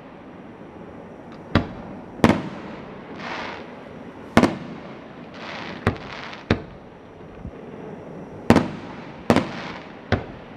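Aerial fireworks shells bursting in a series of about eight sharp bangs, irregularly spaced, with short hissing swells in between.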